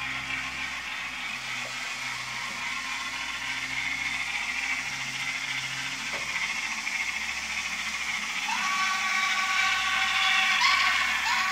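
N scale model steam locomotive and passenger cars running up a track helix: a steady whir and rattle of small wheels and motor on the track. About eight seconds in, a high squealing whine joins it as the locomotive passes close by.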